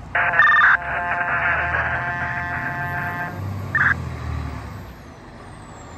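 Fire engine air horn sounding one long, loud blast of about three seconds, then a short toot half a second later, over the low rumble of the approaching truck's engine.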